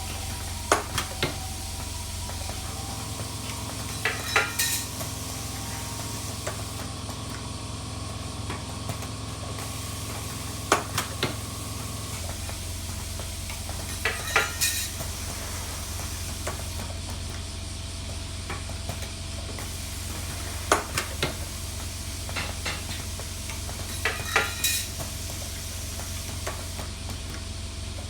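Automatic spot-welding machine fed by a parts feeder, running: a steady low hum and a constant metallic rattle, broken by clusters of sharp clacks about every four to six seconds as the machine goes through a cycle.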